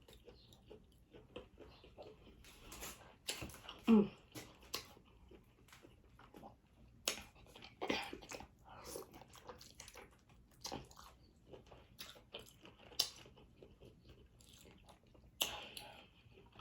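Close-miked eating of boiled seafood: wet chewing, lip smacks and scattered small clicks and crackles. A short falling vocal sound comes about four seconds in.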